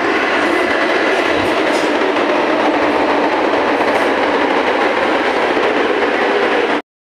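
Delhi Metro train moving along the platform: a loud, steady rush of wheels on rail and running gear, which cuts off abruptly near the end.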